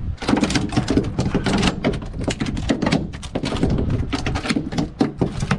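A sheepshead flopping and thrashing on a boat deck: a rapid, irregular run of wet slaps and thumps.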